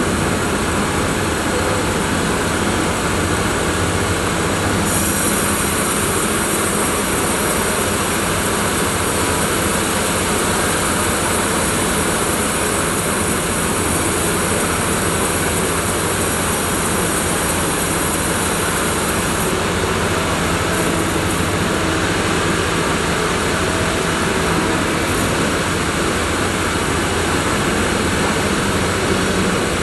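Sawmill machinery running steadily, a constant mechanical drone with a low hum. An added high hiss comes in about five seconds in and stops after about fifteen seconds.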